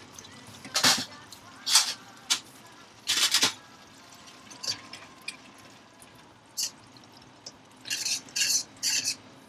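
A kitchen utensil scraping and knocking against a pan or dish in about ten short, uneven strokes, with quiet gaps between them.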